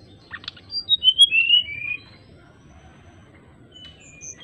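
Brown-chested jungle flycatcher singing: a few short notes, then a quick phrase of clear, flute-like whistles falling step by step in pitch, and a few more whistled notes near the end as the next phrase begins.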